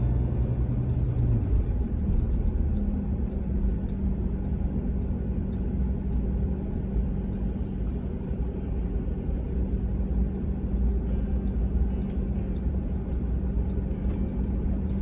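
Vehicle driving along a road, heard from inside: a steady low rumble of engine and tyres. The engine hum shifts up in pitch about two to three seconds in, then holds steady.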